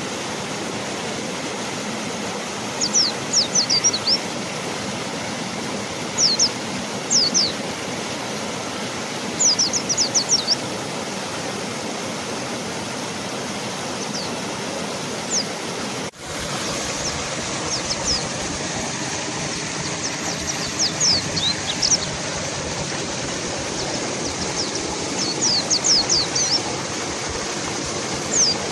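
A river rushing steadily, with a mountain white-eye singing clusters of short, high chirps every few seconds. The sound drops out for an instant about halfway through.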